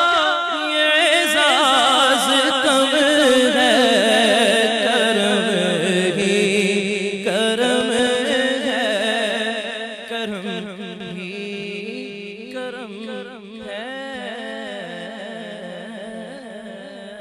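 A man singing a naat unaccompanied into a microphone, holding long ornamented notes that waver and slide downward. It grows quieter about ten seconds in and fades out at the end.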